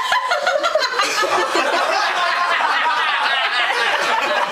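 Several people laughing and chuckling together.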